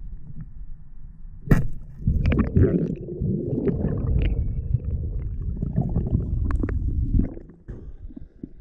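Water churning and gurgling against an underwater camera during a spearfishing dive, with a sharp click about a second and a half in, then a few seconds of dense low rumbling and clicking that eases off near the end.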